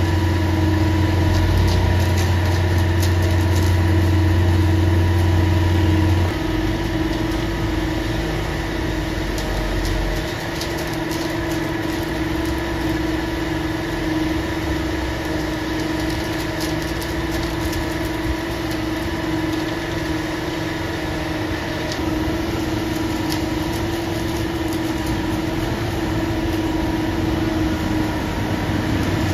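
Concrete mixer truck's diesel engine running steadily. A deep low hum drops away about six seconds in, and a steady mid-pitched drone carries on.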